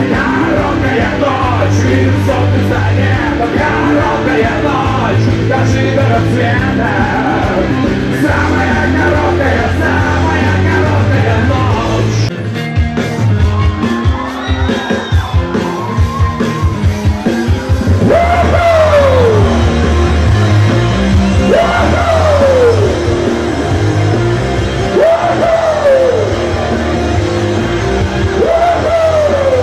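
Loud live rock music over a concert sound system. About 12 seconds in, the full band texture drops away to a pulsing beat. From about 18 seconds a falling, swooping tone repeats roughly every three and a half seconds over the beat.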